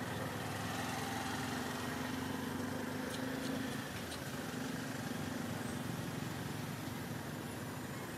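An engine running steadily in the background: an even hum with one constant tone.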